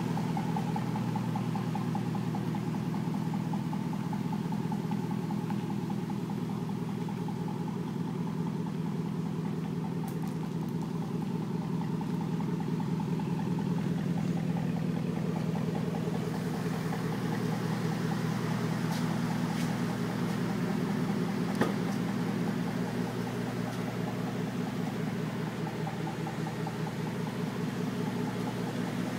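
2007 Chevrolet Avalanche V8 with an aftermarket exhaust idling steadily. There is a single brief click about two-thirds of the way through.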